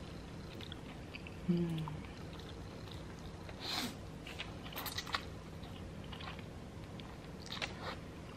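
A person chewing food close to the microphone, with scattered wet mouth clicks. A brief hum of the voice comes about a second and a half in.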